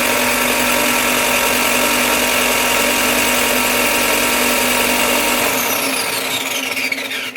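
Bucktool BD4603 direct-drive belt and disc bench sander running at full speed, loud and steady. About five and a half seconds in it is switched off, and its whine falls as the motor spins down.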